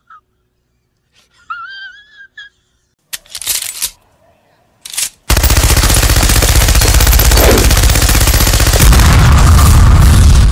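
Machine-gun sound effect: a loud, continuous stream of rapid automatic fire starting about five seconds in. Before it come a brief voice sound and two short noisy bursts.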